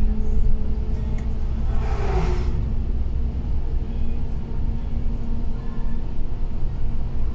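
Steady low rumble and engine drone of a bus heard from inside its cabin while driving, with a brief whoosh about two seconds in as an oncoming bus passes.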